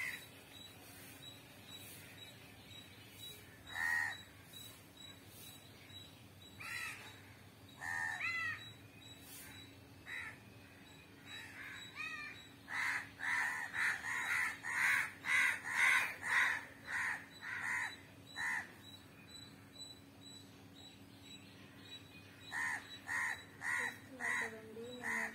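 Crow cawing: a few single caws in the first ten seconds, then a quick run of about a dozen caws, roughly two a second, from about 13 to 18 seconds in, and another short run near the end.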